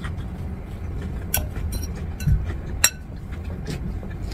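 Fork clinking against a salad bowl while eating: a few sharp clinks over a steady low hum, the loudest about three seconds in.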